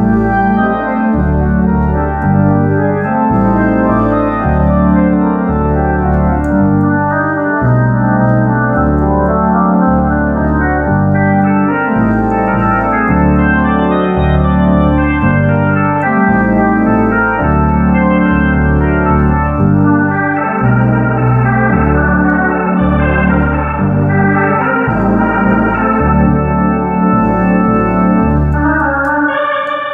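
Hammond B-300 organ playing a melody on the upper manual over held chords from the lower manual, with a bass line stepping under it about once a second.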